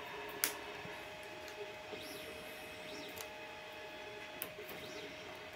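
Small clicks and light metallic ticks of hex keys working the screws on a 3D printer's carriage, with one sharper click about half a second in, over a steady faint hum.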